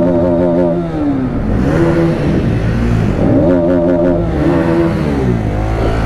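Motorcycle engine revved several times, its pitch rising and falling with each rev.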